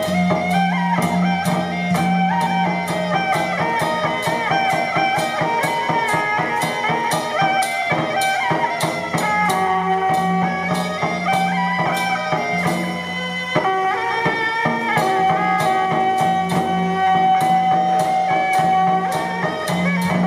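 Taiwanese shifan (十番) traditional ensemble playing: wind instruments carry a melody over a steady low drone, with percussion striking a regular beat. The music briefly drops away about 13 seconds in, then resumes.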